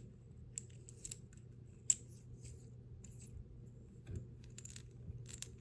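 Small, scattered clicks and light scrapes of a metal tactical pen being handled, its screw-together parts and ink cartridge spring being worked, over a faint steady hum.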